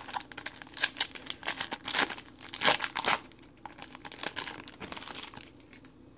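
Foil wrapper of a Panini Prizm basketball card pack being torn open and crinkled in the hands, a run of crackles that is loudest about halfway through and dies away near the end.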